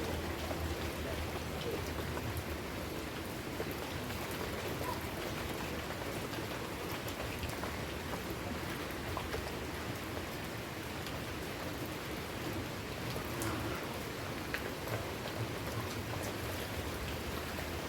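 Steady rain falling, with scattered drops ticking on surfaces. A low hum fades out in the first second.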